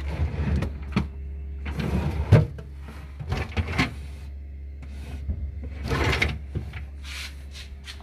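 Plastic fridge drawers and shelves being handled: a series of short sliding scrapes and rattles, with one sharp knock a little over two seconds in, over a steady low hum.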